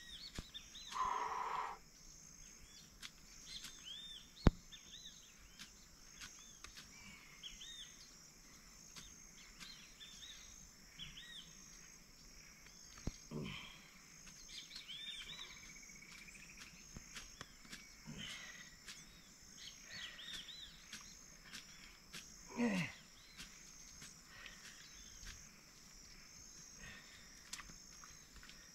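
Rural tropical ambience: a steady high-pitched insect chorus with many small bird chirps. A louder call slides down in pitch twice, once about halfway through and once near the end, and a single sharp click comes about four seconds in.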